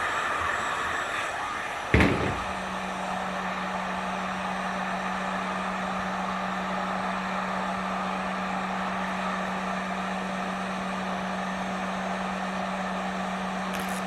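Heat gun blowing steadily. About two seconds in there is a sharp knock, and after it a steady low hum runs under the blower noise.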